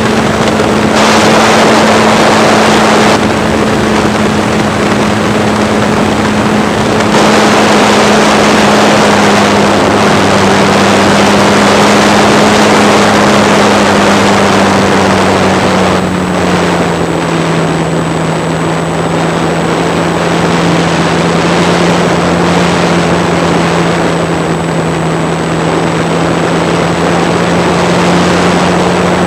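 Radio-controlled model airplane's motor and propeller running steadily in flight, with heavy wind rush over the onboard camera. The propeller's drone drops a little in pitch just over halfway through.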